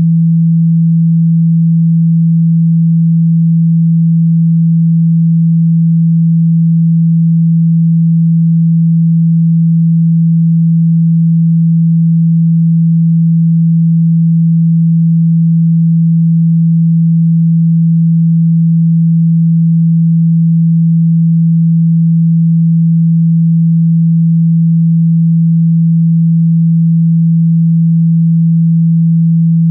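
Steady 165 Hz sine-wave tone, a single low hum that holds the same pitch and loudness throughout, played to shake water out of a phone's speaker.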